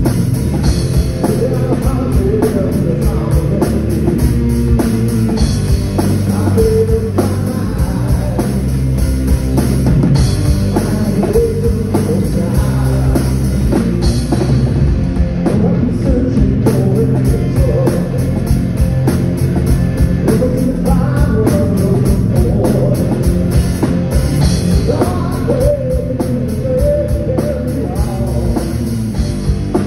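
Live rock band playing an 80s hair metal cover: electric guitars, bass guitar and a drum kit with steady beats and cymbals, loud and unbroken.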